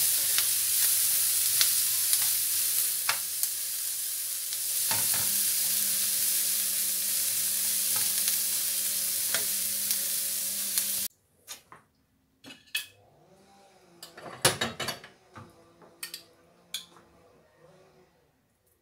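Mushrooms, onion and garlic sizzling in a frying pan, stirred with a wooden spatula that taps and scrapes against the pan. The sizzling cuts off abruptly about eleven seconds in, leaving scattered light clinks and knocks of a spoon and bowl.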